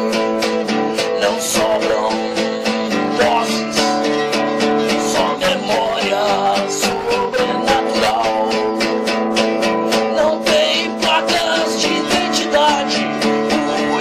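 Background music: a song carried by strummed acoustic guitar.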